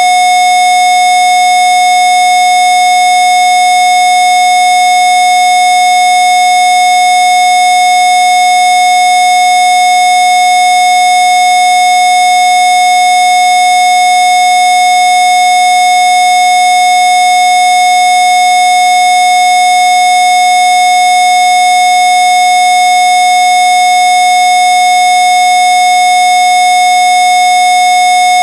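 Steady electronically generated sine tone a little below 800 Hz, one of the Rife 'healing frequencies', held unchanging at full level with fainter higher tones above it.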